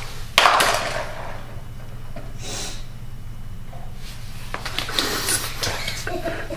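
Toddlers playing on a tiled floor: a loud breathy burst about half a second in and a shorter one near the middle, then scattered light knocks and taps as they crawl across the tiles.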